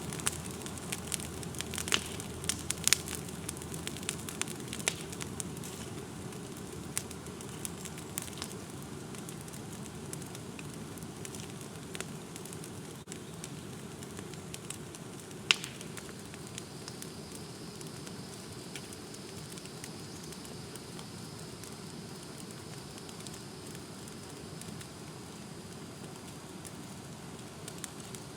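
Brush pile of vine-tangled shrubs and oak limbs burning: a steady low rush of flame with sharp crackles and pops. The crackles come thick at first and thin out, with one loud pop about halfway through.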